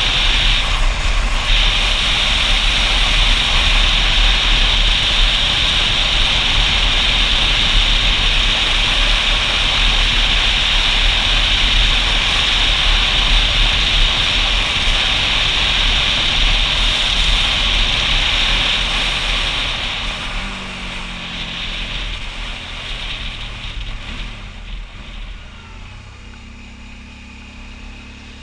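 Wind and road noise from a motorcycle riding on a wet road: a loud, steady rush with a heavy low rumble. About twenty seconds in it fades as the bike slows, leaving the engine's quieter running note.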